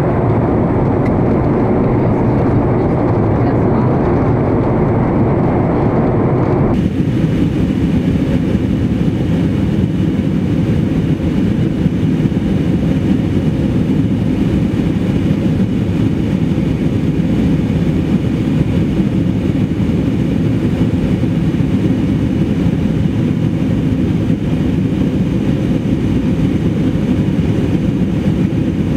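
Steady noise inside an airliner cabin in flight, from the engines and the air rushing past the fuselage. About seven seconds in, the noise changes abruptly to a thinner, hissier sound.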